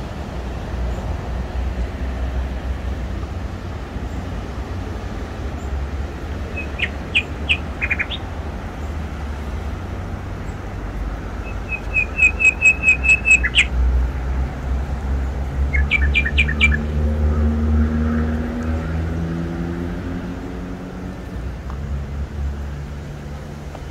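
Small birds chirping in short bursts: a few notes about seven seconds in, a quick run of about eight chirps around twelve seconds, and another cluster near seventeen seconds, over a steady low rumble. In the second half a low hum with several pitches swells and then fades.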